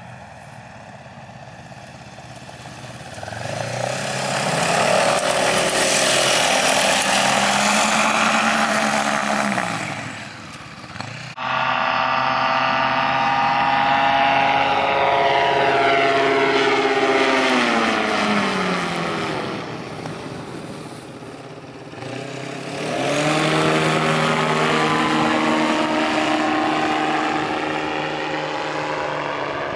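Kolb Firestar ultralight's Yamaha Phazer snowmobile engine driving its propeller in flight, getting louder a few seconds in. Midway the plane passes close by and the engine pitch sweeps steadily down, then it swells again as the plane comes back around, easing off slightly near the end.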